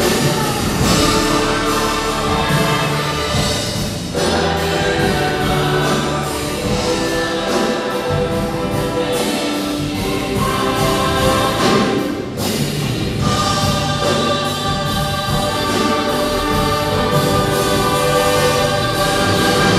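Choir singing with instrumental accompaniment, in long held chords at a steady, loud level.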